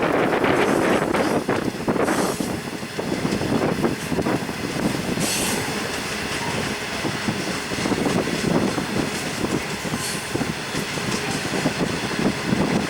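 Loaded coal wagons rolling past on a climbing freight train, wheels clattering steadily over the rail. A brief high squeal comes about five seconds in.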